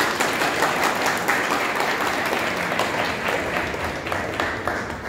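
A crowd applauding: many hands clapping steadily, easing off slightly near the end.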